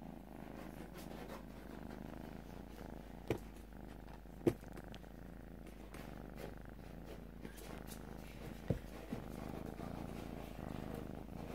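Kitten purring steadily, held close to the microphone, with three brief knocks over it, the loudest about four and a half seconds in.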